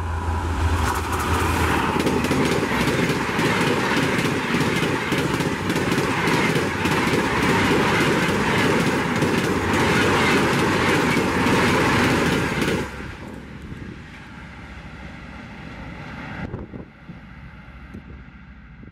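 The Bhopal Shatabdi Express, hauled by a WAP-5 electric locomotive, passes at about 150 km/h. Its wheels and coaches make a loud rushing clatter with rapid clicking, which cuts off abruptly about thirteen seconds in as the last coach goes by, leaving a fading rumble.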